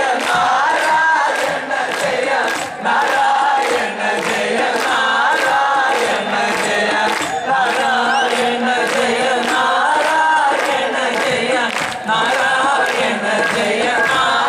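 Male voices singing an Ottamthullal-style song together over a steady beat of drum strokes, with the crowd cheering.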